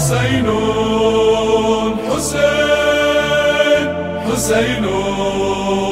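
Intro of a latmiyya: a wordless layered vocal chant holding a slow melody, with a sharp percussive hit about every two seconds.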